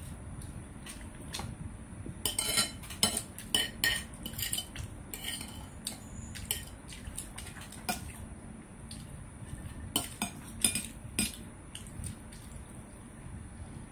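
Eating by hand from a ceramic plate: scattered clinks and taps on the plate, bunched a couple of seconds in and again about ten seconds in.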